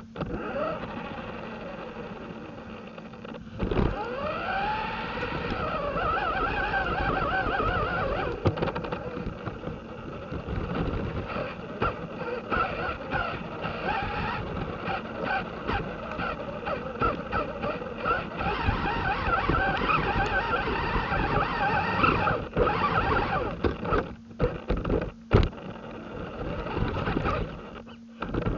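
Losi Rock Rey RC rock racer driving on a 2S battery: its electric motor whines up and down in pitch with the throttle over steady tyre and ground noise. Sharp knocks come from bumps, the loudest about four seconds in and near the end.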